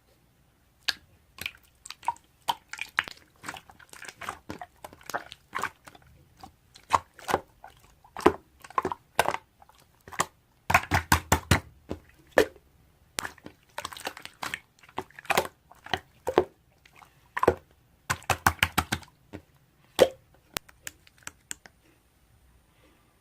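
Irregular crisp crunching and clicking, like something being chewed or bitten, with a few louder dense flurries.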